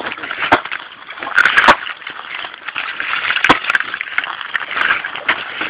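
Wood cracking and splintering in sharp snaps: one about half a second in, a quick cluster of three around a second and a half, another about three and a half seconds in, and fainter ones near the end. Rustling and crunching fill the gaps.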